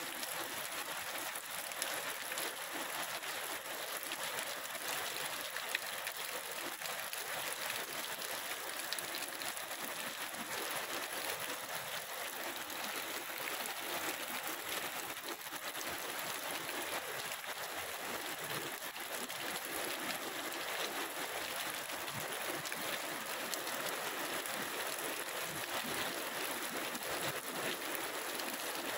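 Heavy rain pouring steadily onto water, grass and pavement: an even, unbroken hiss.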